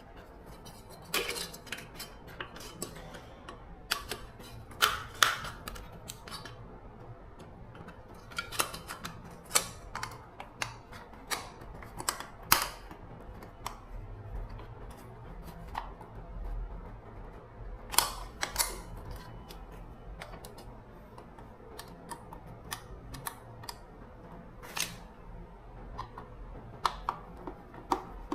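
Irregular clicks and taps of small metal parts and hand tools being handled during repair work, a few sharper knocks among them, over a faint low hum.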